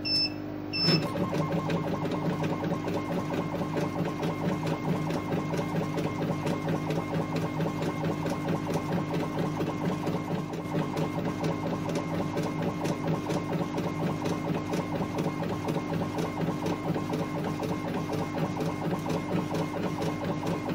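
Laser engraver raster-engraving a can held in a stepper-driven rotary attachment: the laser head's stepper motors drive it rapidly back and forth in a fast, even, printer-like ticking rhythm over a steady hum. A brief high beep comes right at the start, as the job begins.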